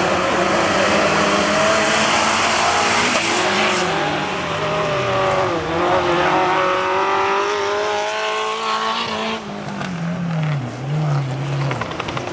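Several autocross cars' engines revving hard as they race around a dirt-track bend, their notes rising and falling and overlapping; a little quieter in the last few seconds.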